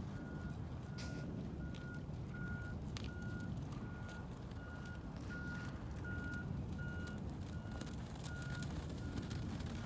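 A vehicle's reversing alarm beeping on one steady pitch about twice a second, over a continuous low rumble, with a few faint clicks.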